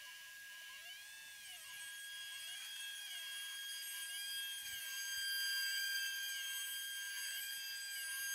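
DIY CNC router running: the spindle gives a steady high whine while the stepper motors sing rising-and-falling tones that repeat about every second and a half as the end mill moves in the plywood. It gets louder about halfway through as the cutter bites in and starts throwing chips.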